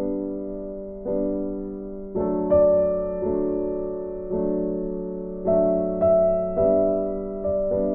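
Background piano music: slow chords struck about once a second, each fading away before the next.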